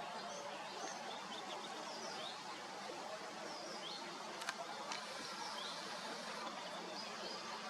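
Small birds chirping, short high calls repeated throughout, over a steady outdoor hiss. Two sharp clicks come close together about halfway through.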